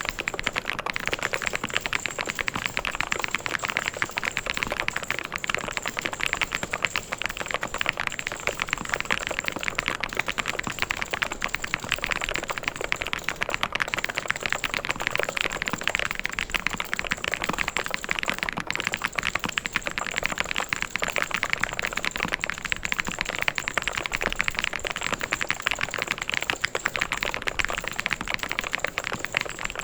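Continuous fast typing on a mechanical keyboard: a dense, unbroken stream of key clicks.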